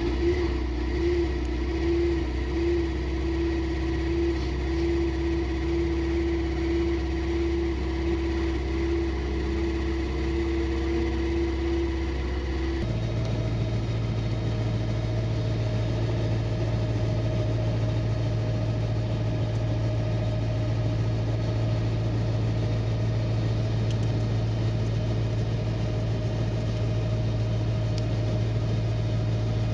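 Small helicopter's engine running steadily on the ground, heard from inside the cockpit. About 13 seconds in its hum changes pitch abruptly, then holds steady at the new note.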